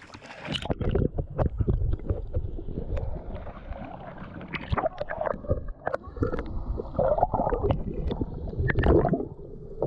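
Water sloshing and gurgling around a small boat, with wind rumbling on the microphone and irregular knocks throughout.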